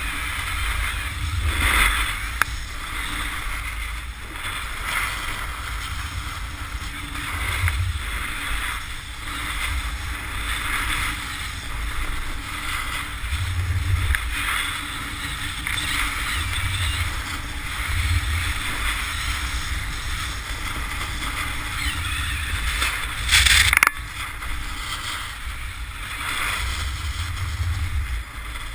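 Snowboard sliding and carving over groomed snow: a rough scraping hiss that swells and fades with each turn, with wind buffeting the microphone in low gusts. A short, louder scrape comes about three-quarters of the way through.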